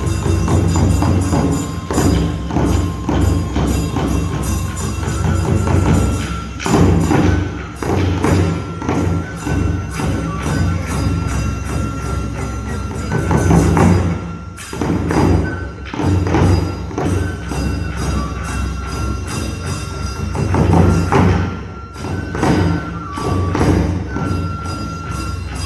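Kagura festival music: a large taiko drum struck again and again in a driving rhythm, with a high transverse flute holding long notes that step from one pitch to another above it.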